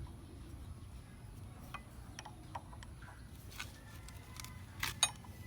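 Light metallic clicks and taps of new brake pads and the pad pin being handled and seated in a motorcycle's front brake caliper, scattered and irregular, with the loudest pair of clicks near the end.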